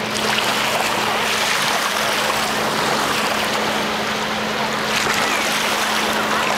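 Small Lake Ontario waves washing and lapping along the sandy shore in a steady rush, with small splashes of water being scooped at the water's edge. A steady low hum runs underneath.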